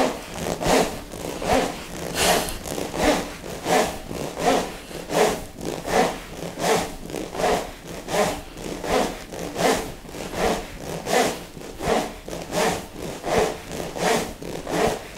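Pair of smovey rings swung back and forth, the steel balls inside each hollow plastic hoop rolling round with a rhythmic rasping rattle, about three swings every two seconds.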